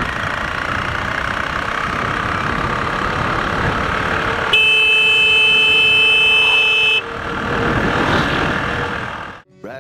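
Wind rush and running noise of a motorcycle being ridden along a road, with a loud, steady vehicle horn blast of about two and a half seconds in the middle.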